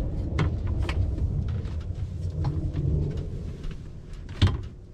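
Someone climbing an aluminium ladder into a van's pop-top roof: scattered clicks and knocks of hands and feet on the rungs over a low rumble, with one sharper, louder knock about four and a half seconds in.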